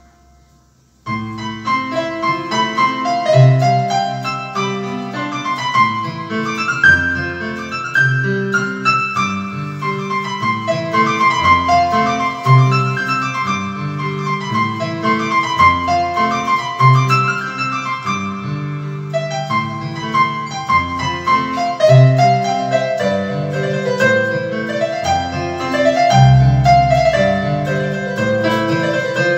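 Electronic keyboard played with both hands: a flowing melody over a steady bass line, starting about a second in.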